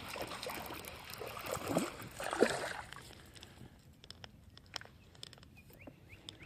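Water splashing and sloshing for about three seconds as a small hooked bass thrashes at the surface. It then goes quieter, with scattered small clicks and a few faint short rising chirps.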